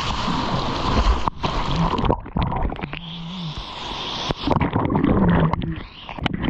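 Seawater splashing and gurgling right at the microphone as a surfboard is paddled through small breaking whitewater. The rush is steady for about two seconds, then breaks into choppy bursts, muffled in places as the camera dips under the surface.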